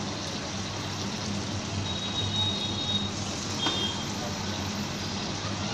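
Batter-coated baby corn fritter sizzling as it deep-fries in hot oil in an aluminium kadai, over a steady low hum. Two brief high thin tones sound around the middle.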